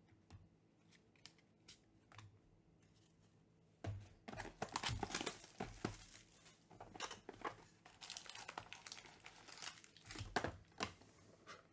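A few faint clicks, then from about four seconds in, plastic shrink wrap tearing and crinkling as it is stripped off a trading card box. Near the end, the box's cardboard lid opens and the foil packs are handled.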